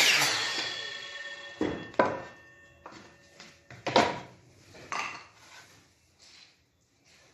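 DeWalt miter saw blade spinning down after a cut, its whir fading away over the first few seconds, while 15 mm MDF boards are set down and slid against the fence, giving several sharp wooden knocks.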